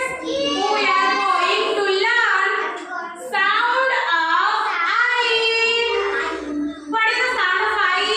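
A child singing in a high voice, in phrases with short breaks about three and seven seconds in.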